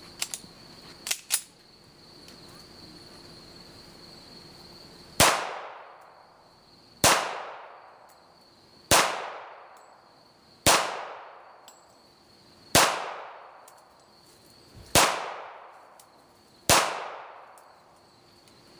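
Remington R1 1911 pistol fired seven times in slow, even succession, about two seconds apart, each shot trailing off in an echo. A few light clicks come before the first shot. Crickets chirp steadily underneath.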